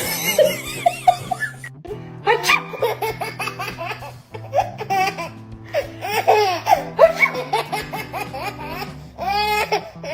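A baby laughing in repeated short bursts over soft background music.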